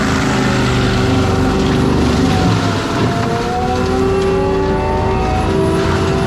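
Forestry mulcher on an ASV RT-120F compact track loader running under load, a steady diesel drone with a whine that sags and climbs back in pitch as it works.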